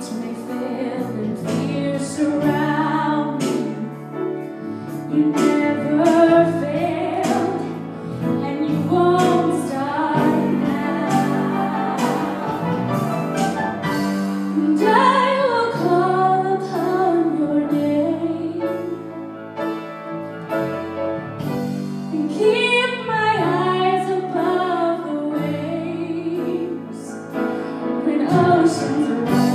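A woman singing a slow contemporary worship song into a microphone over piano accompaniment, in long, held phrases.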